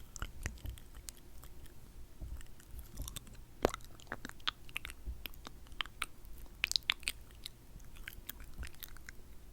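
Close-microphone wet mouth sounds: irregular sticky clicks and smacks of the lips and tongue, some louder than others.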